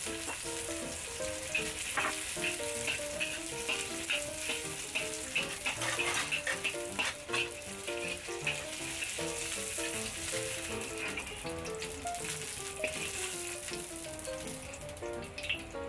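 Shallots, garlic and ginger sizzling in hot oil in a wok, with a metal spatula scraping and tapping the wok as they are stir-fried. Light background music runs underneath.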